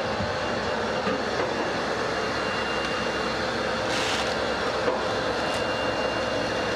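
Steady whooshing hum of the International Space Station's cabin ventilation fans and equipment, with a faint steady whine in it, and a brief hiss about four seconds in.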